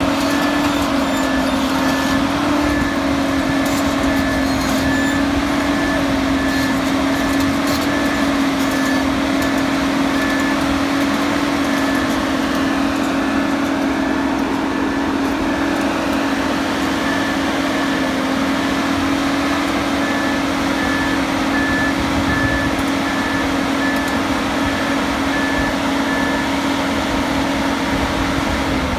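Sandvik Ranger crawler drill rig's diesel engine running steadily at an even pitch, with its travel alarm beeping about twice a second while the rig moves on its tracks. The beeping stops near the end.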